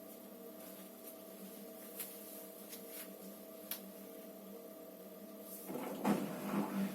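Electrolux EWT 1377VIW top-loading washing machine running: a steady hum with a few faint clicks, then a louder, uneven churning sound sets in about six seconds in.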